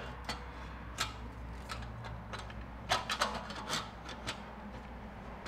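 LeoVince slip-on muffler being twisted and pushed onto the exhaust link pipe: metal sleeve rubbing and scraping on the pipe, with a few sharp clicks, the loudest about three seconds in.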